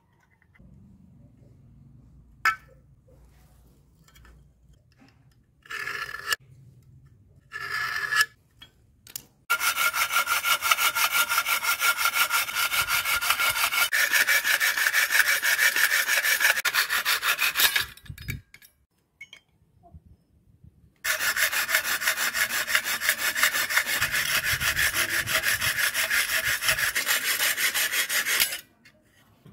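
Hacksaw cutting a thin aluminium piece by hand: a couple of short scrapes, then two long runs of fast, even back-and-forth strokes with a pause of a few seconds between them.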